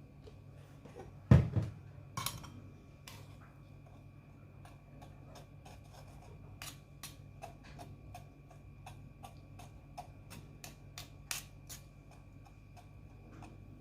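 Kitchen utensils knocking and tapping while blended ginger and onion pulp is strained: two louder knocks in the first few seconds, then a long run of light clicks against the strainer, a few a second.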